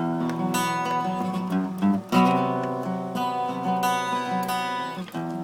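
Acoustic guitar strummed, chords ringing out, with a sharp new strum about two seconds in.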